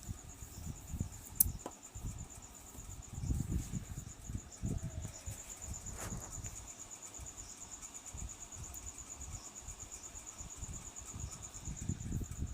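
A cricket chirring steadily at a high pitch, with irregular low knocks, clicks and handling noises from opening a CRT TV's back cover.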